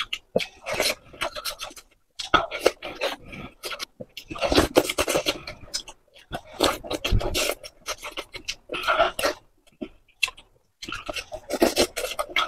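Close-up chewing of soup dumplings: wet, crackling mouth sounds come in about six bursts of a second or so, with short pauses between them.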